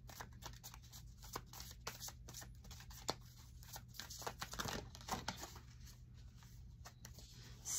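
Moonology oracle cards being shuffled by hand: a quiet, irregular run of short card flicks and slaps.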